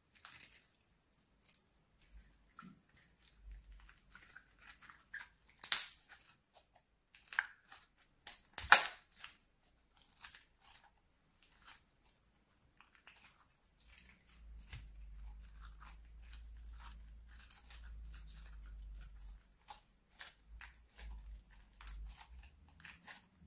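White slime being kneaded and squeezed by hand: a run of small wet clicks and crackles, with a few loud sharp pops about six and nine seconds in.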